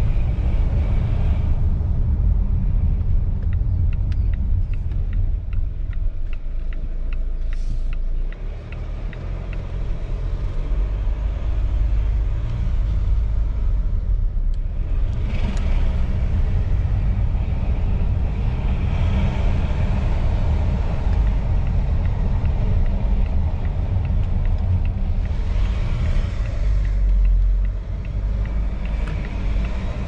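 2018 Volvo XC90 D5 driving slowly, heard from inside the cabin: a steady low rumble of its four-cylinder diesel engine and tyres on the road. The rumble dips briefly about a quarter of the way in and again near the end.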